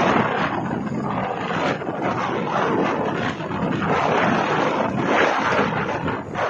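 Wind buffeting the microphone and road noise from a moving motorbike, a loud rushing that swells and dips.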